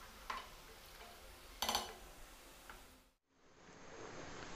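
Wooden spoon stirring thin curry gravy in an aluminium pot, faint, with three short knocks of the spoon against the pot, the second the loudest.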